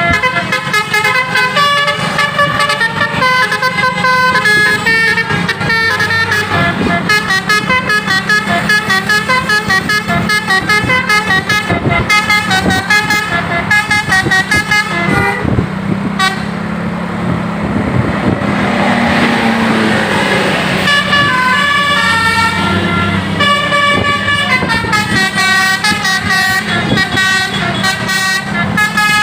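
A tourist bus's 'telolet' musical horn playing rapid, quickly changing multi-note tunes over a low steady hum. About sixteen seconds in, the tunes stop and a hissing rush takes over for several seconds, then the horn tunes start again.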